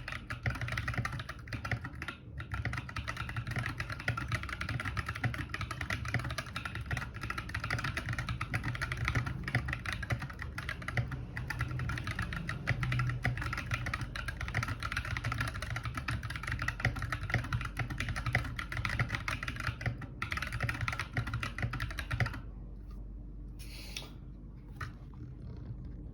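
Akko 3068 v2 mechanical keyboard with Ocean Blue switches being typed on fast and continuously, a dense run of key clicks. The typing stops near the end, leaving a faint steady hum and a couple of light clicks.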